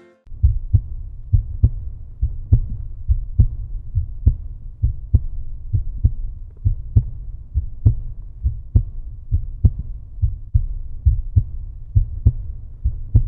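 A steady, muffled low thumping beat, a strong thump a little under once a second with softer thumps between, added to the end of the video.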